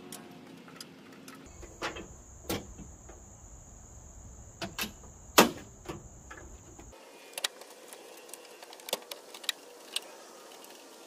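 Metal hood prop rod and plastic bug shield on a Toyota Tacoma clicking and knocking as the shield is pried up to work the rod out of its hole, which the shield partly covers. Irregular sharp clacks, the loudest about five seconds in.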